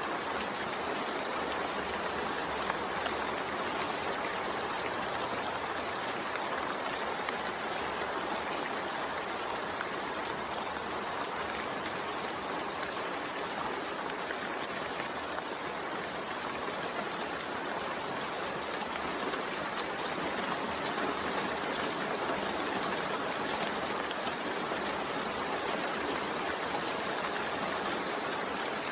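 Steady rainfall, an even, unbroken hiss of falling water with no distinct drops or pauses.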